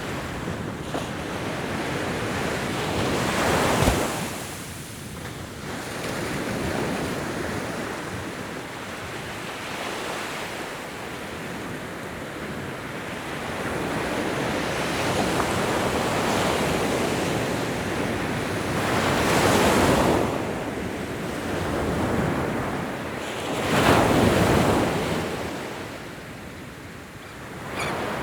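Ocean waves breaking and washing on a shore, a steady rush of surf that swells into louder crashes about 4 seconds in, again near 20 seconds and once more near 24 seconds.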